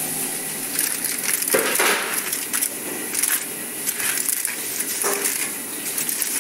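Aluminium foil crinkling as it is handled, in short irregular crackles.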